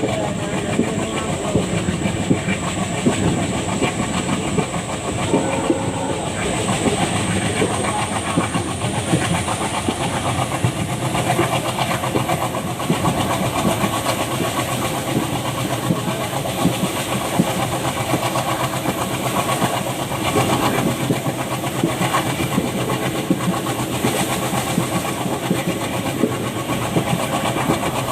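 ALCO WDG3A diesel locomotive's 16-cylinder engine chugging steadily with the train under way, heard from the floor of a coach close behind it, with the wheels clattering over the rails. A thin high whine rises in pitch partway through.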